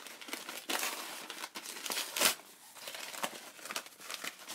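A small book mail package being torn and crinkled open by hand, in irregular crinkles with a louder one just past two seconds in.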